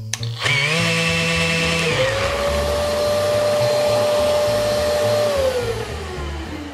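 A Festool round-pad sander is started and its Bluetooth-paired Festool dust extractor switches on with it. The motor whine rises and settles about two seconds in, runs steadily, then drops in pitch as the motors wind down near the end.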